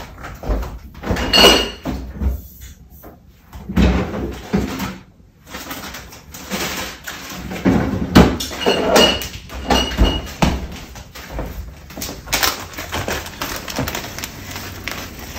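A kitchen door or cupboard opening and closing while things are handled out of sight: a run of irregular knocks, clunks and rustles, with a few short high squeaks or tones among them.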